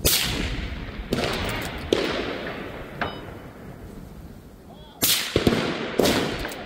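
Rifle shots at a precision rifle range, about seven sudden cracks, each trailing off in a long echo. The loudest comes right at the start, more follow about one, two and three seconds in, and a close group of three comes near the end.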